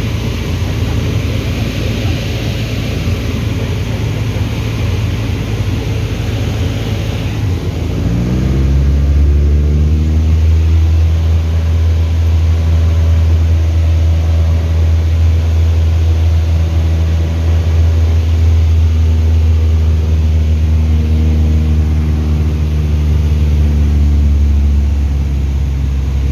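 A light aircraft's piston engine running. About eight seconds in it speeds up, its pitch rising, then it holds a steady, even drone.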